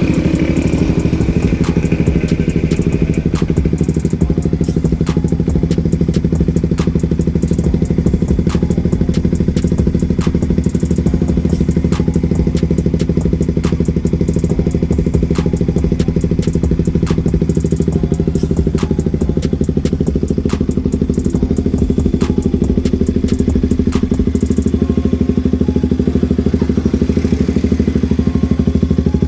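KTM RC 200's single-cylinder four-stroke engine idling steadily through a Yoshimura R-11 full exhaust system.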